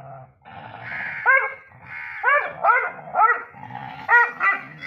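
Dog barking in a quick series of about six short, sharp barks, with rougher growly sounds between them.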